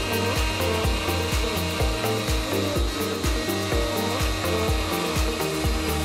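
Background electronic music with a steady kick-drum beat and bass line, over the steady whine and hiss of a CNC router's DeWalt spindle cutting a sheet of PVC.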